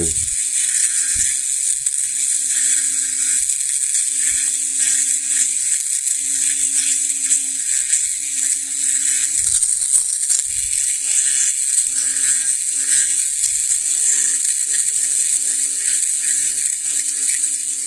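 Small electric engraving machine running steadily with a high buzz while engraving letters, a lower hum coming and going in short stretches of about a second as the tool works.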